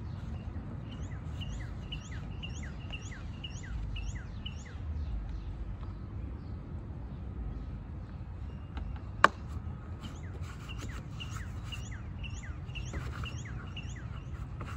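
A bird singing a rapid series of repeated chirps, about three a second, in two bouts, over a low steady background rumble. A single sharp click about nine seconds in.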